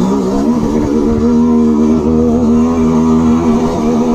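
Dirt bike engine running at fairly steady revs under way, its pitch wavering slightly with small throttle changes, heard close-up from the bike.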